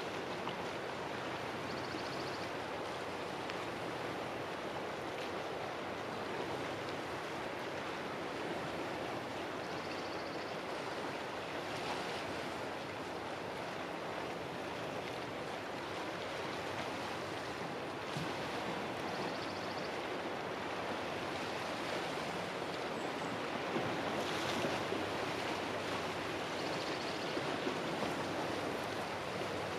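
Steady, even rush of small waves washing on the shore, with a few faint, brief high-pitched sounds about every eight seconds.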